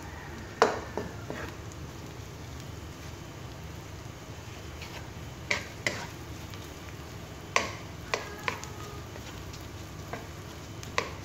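Wooden spatula stirring and scraping onions, garlic and salted egg in a coated wok, over a faint steady sizzle as the salted egg melts into the sauté. Several sharp knocks of the spatula against the pan, one about half a second in and most in the second half.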